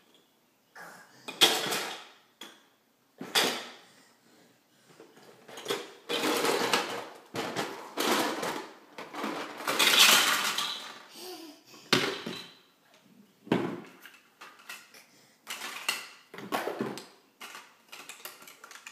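Plastic LEGO Duplo blocks clattering against each other, a plastic bucket and a hardwood floor as a toddler handles them. It comes in a series of short rattles, with the longest and loudest clatter about ten seconds in, as the bucket is tipped and the blocks pour out.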